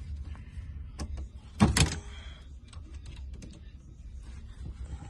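Scattered small clicks and taps of tools and parts being handled while a steering-column turn-signal switch is fitted and screwed down, with one loud clatter, like a part knocking twice against another, a little under two seconds in.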